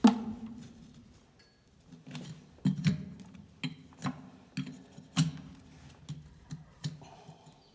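A farrier's hammer striking metal in an uneven series of about a dozen sharp blows, each with a brief ring.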